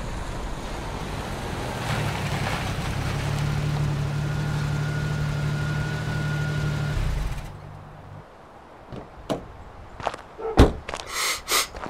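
Car engine running steadily as the car drives, then cutting off about seven and a half seconds in. A few sharp clicks and a knock follow, like a car door opening and shutting.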